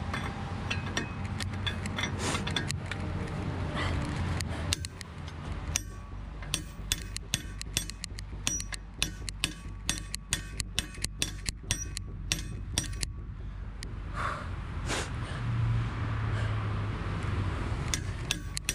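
Hammer striking a steel socket bar fitted over a truck's wheel nut: a run of sharp, ringing metallic blows, about two or three a second, with scattered knocks before it and a few more blows near the end.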